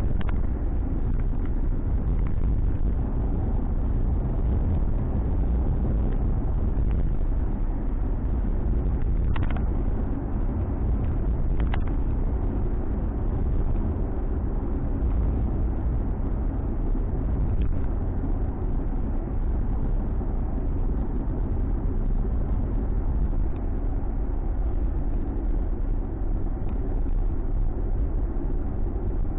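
Steady low rumble of a Ford Mustang cruising, heard from inside the cabin: engine and road noise, with two faint clicks near the middle.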